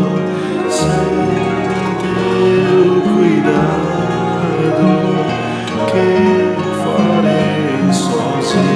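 Music: a traditional Christian Congregation in Brazil hymn, voices singing over instrumental accompaniment in slow, held chords.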